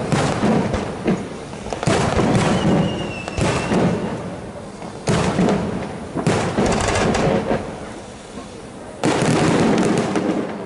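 Aerial firework shells bursting overhead in quick succession: about six loud booms, each fading into a rolling crackle.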